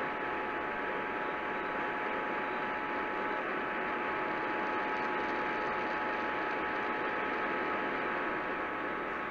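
Steady radio static: an even hiss from an off-air receiver, with a faint, steady whistle tone running through it.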